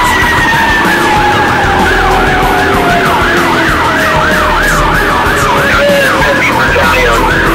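Fire engine siren in a fast yelp, heard from inside the cab. A second, steadier siren tone slowly falls in pitch beneath it.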